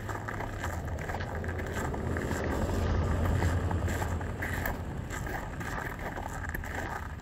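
A motor vehicle passing by, its low rumble swelling to a peak about three seconds in and then fading.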